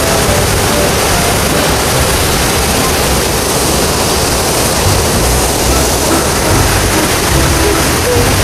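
Loud, steady rush of flowing river water.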